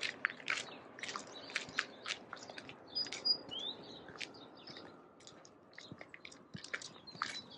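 Footsteps crunching in snow at a walking pace. A bird gives a short high whistle and a rising chirp about halfway through, and a run of quick high notes near the end.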